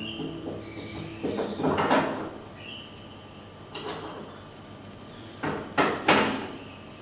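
Metal gas-stove burner parts, the flame-spreader ring and burner cap, being fitted back onto the burner base: scraping clinks and knocks of metal on metal. A scraping run comes about a second in, and two sharper knocks, the loudest, come about six seconds in.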